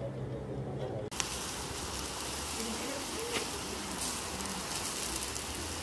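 Kebab meat in a wire grill basket sizzling over hot charcoal: a steady hiss with scattered sharp crackles, starting about a second in after a low hum.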